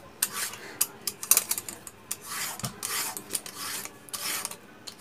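Y-shaped vegetable peeler scraping the skin off a bottle gourd in several short rasping strokes, with a sharper click about a second in.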